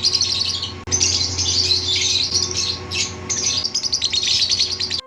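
Lovebirds chirping: rapid, dense, high-pitched chatter with brief pauses, cutting off suddenly at the end.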